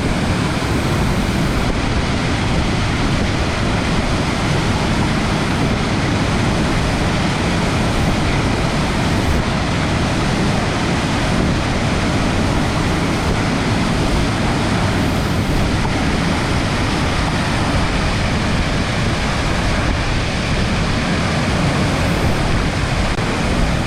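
Waterfall close by: a loud, steady rush of falling water, heaviest in the low end.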